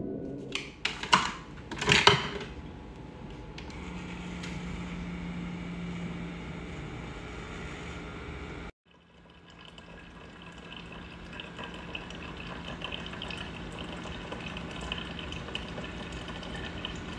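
A few sharp hits near the start, then a Keurig single-cup coffee maker brewing: a steady pump hum with coffee streaming into a mug. It cuts out suddenly about halfway through and then resumes.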